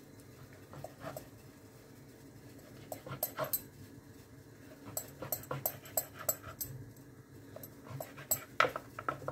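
Kitchen knife cutting a sheet of dough into strips on a wooden chopping board: soft taps and clicks of the blade on the board, in three short runs of a few taps each, the loudest near the end.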